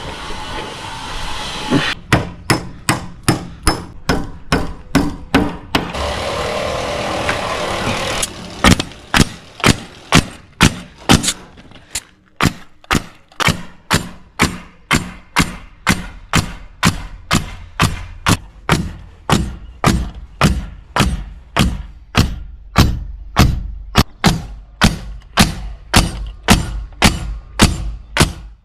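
Hammer driving nails into framing lumber: sharp, evenly spaced strikes at about two to three a second, broken near the start and around six seconds in by stretches of steady rasping noise.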